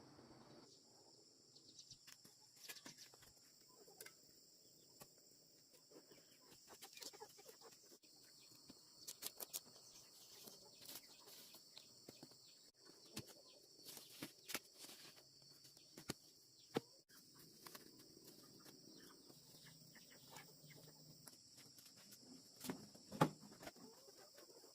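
Faint chickens clucking, with scattered light clicks over a steady high drone.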